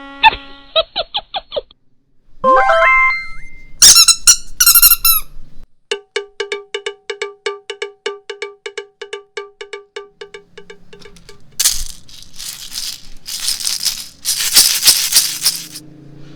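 A run of squeaky, cartoon-like sound effects: quick pitched notes, a rising squeal and high chirps, then an even string of short squeaks at about five a second. From about three-quarters through come several bursts of crackling noise.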